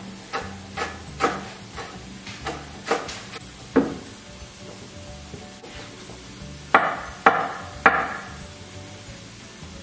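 Kitchen knife chopping green onions on a wooden cutting board: a steady run of chops about two a second, then three louder knocks on the board about seven seconds in.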